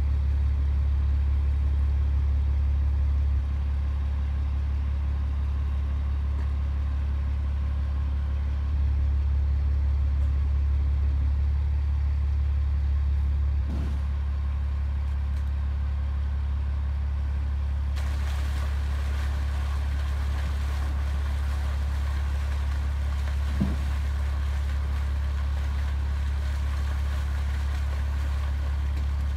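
Fish-stocking truck's engine running steadily as a low rumble. About 18 s in a steady rush of water joins it as the truck's discharge pipe starts emptying water and fish into the pond, with one brief thump a few seconds later.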